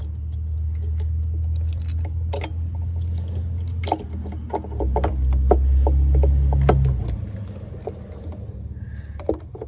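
Scattered light clicks and knocks as the carburetor of a 50cc ATV is worked loose and slid out among its wires and hoses. Under them runs a low rumble that swells about five seconds in and dies away about two seconds later.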